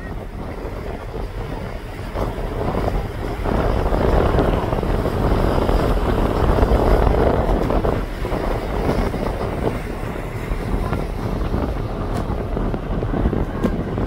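Wind buffeting the microphone on the open deck of a ferry under way, over a steady low rumble from the ship. The wind rush swells from about two seconds in and eases after about eight seconds.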